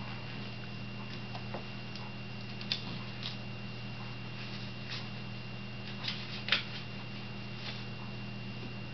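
A few short scratchy ticks and scuffs as a child pulls on and fastens his sandal straps, the loudest a bit past the middle, over a steady low hum.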